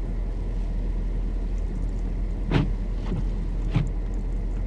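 Steady low engine rumble of an idling car, heard from inside the cabin, with two brief thumps about two and a half and four seconds in.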